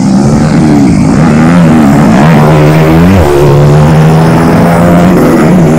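Motocross dirt bike engines revving hard, the pitch climbing and then dropping back several times as the riders work the throttle and gears.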